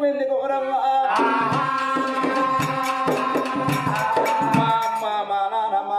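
Oggu Katha folk singing: a man's voice, joined about a second in by a drum beaten quickly under a long held note. The drumming stops near five seconds and the singing goes on.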